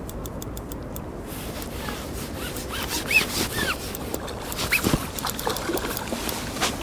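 A hooked fish splashing and thrashing at the water's surface as it is played in close on a feeder rod, water sloshing and dripping. A run of quick, even clicks comes in the first second.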